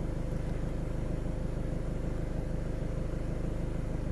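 Car engine idling: a steady low rumble with a thin steady hum above it.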